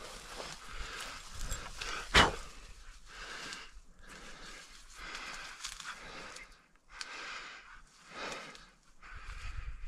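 Footsteps swishing through dry grass cover with heavy breathing, about a step a second, and one sharp knock about two seconds in.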